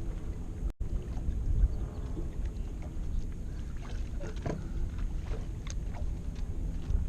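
Steady low rumble of wind and boat noise on open water, with a few faint small clicks or splashes in the middle and a brief dropout in the sound under a second in.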